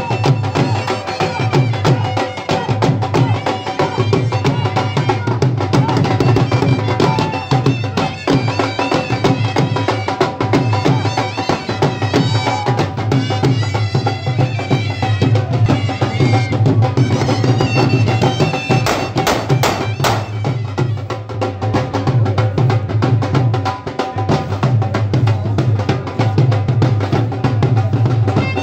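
Dhol drums beaten with sticks in a steady folk rhythm, with a traditional melody over the drumming.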